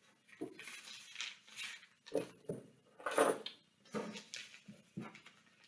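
Small beads clicking and a plastic bag rustling as beads are picked out by hand: a string of short, irregular clicks and crinkles, the loudest about three seconds in.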